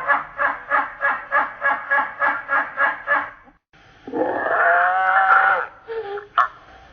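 Kookaburra and parrot calls played back slowed down: a rhythmic laughing run of notes, about four a second, stops about three and a half seconds in, then after a short pause a longer, harsh, wavering call and a few short squawks near the end.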